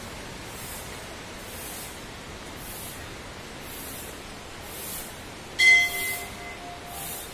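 Steady background hiss with soft swishes about once a second. About five and a half seconds in, a metal temple bell is struck once, loud and bright, and rings for about a second as it fades.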